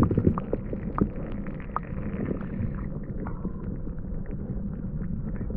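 Muffled underwater sound of water moving among rocks: a low, steady rumbling wash with many small scattered clicks and ticks.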